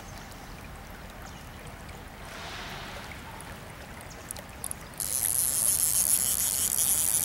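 River water with a hooked trout splashing at the surface. About five seconds in, a louder, high-pitched steady hiss starts abruptly.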